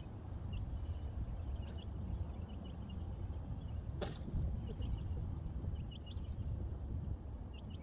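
Wind rumbling on the microphone at a riverbank, with small birds chirping here and there. About four seconds in comes a single brief whoosh, as a fishing rod is swept up and bends into a hooked fish.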